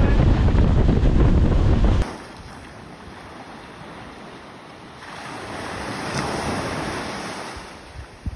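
Loud wind rumble buffeting the microphone aboard an open motor launch. About two seconds in it cuts abruptly to a much quieter wash of sea waves on the shore, which swells for a couple of seconds and then eases.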